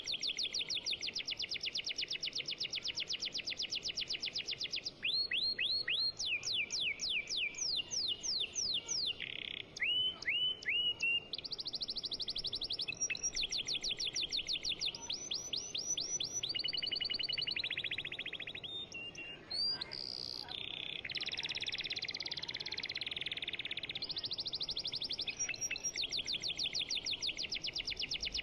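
A songbird singing a long, continuous run of rapid trills and chirps, with the repeated note changing every second or two.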